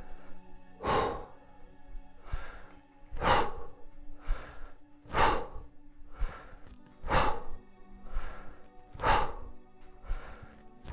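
A man breathing hard and audibly in time with one-arm kettlebell swings, in on the upswing and out on the downswing. A strong breath comes about every two seconds, with a softer one between.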